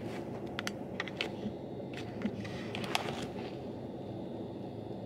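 A handful of light, sharp clicks and taps, several in the first second and one near the three-second mark, over a steady low hum.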